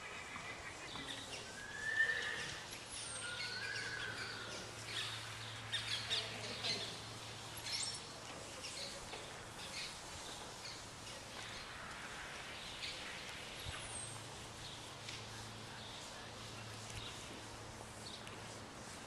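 Horse being ridden over a sand arena floor: scattered hoofbeats, with two short gliding high-pitched calls about two and three seconds in, over a faint steady hum.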